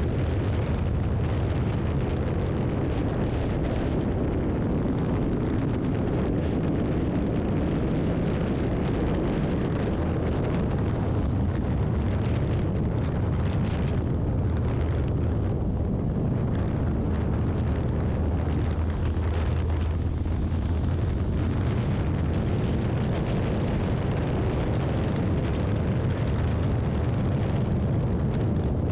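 Honda X-ADV 750 parallel-twin motorcycle cruising at highway speed: a steady low engine drone under heavy wind rush buffeting the microphone.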